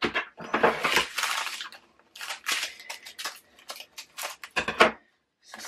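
Crinkling of small plastic bags of diamond painting drills, with clicks of clear plastic storage pots and a snip of scissors cutting a bag off the strip. The sound comes as an irregular run of short crackles and clicks.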